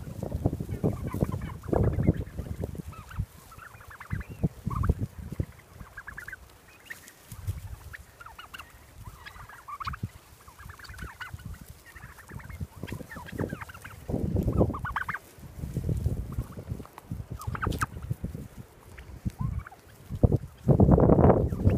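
A flock of heritage turkeys calling, many short high-pitched calls overlapping throughout. Bouts of low rumble come and go beneath them, loudest near the end.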